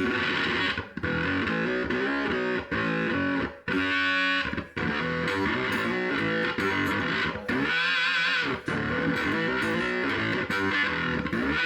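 Electric guitar played through homemade clone effects pedals: notes and chords with distortion, broken by short pauses, and in places a warbling modulation.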